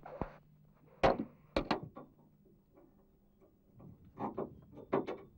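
Steel handcuffs being fastened and handled: a few sharp metallic clicks and knocks. One comes about a second in, a quick pair follows, and another cluster comes near the end.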